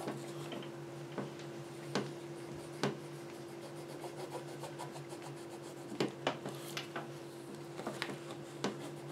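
Coloured pencil rubbing and scratching on paper as a drawing is shaded in, with scattered light taps and clicks from the pencil and hand on the paper. A faint steady hum runs underneath.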